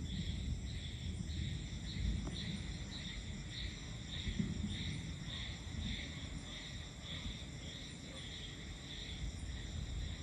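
Night insects chirping in an even pulse, about two chirps a second, over a low, uneven rumble of distant thunder that swells near the start and again about four seconds in.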